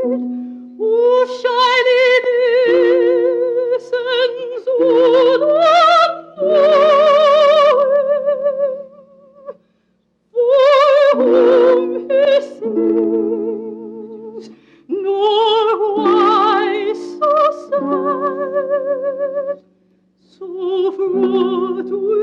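Soprano singing a slow, lyrical classical song with a wide vibrato over held instrumental chords; the phrases break off twice into brief pauses.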